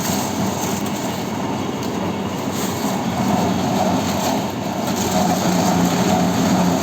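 Industrial glass-recycling machine running steadily with a dense, loud mechanical noise and a low hum, growing a little louder about halfway through.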